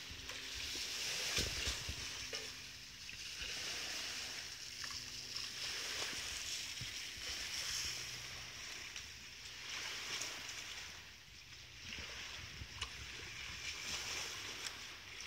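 Lake water lapping and splashing at the water's edge, a hiss that swells and fades every couple of seconds, over a faint low steady hum.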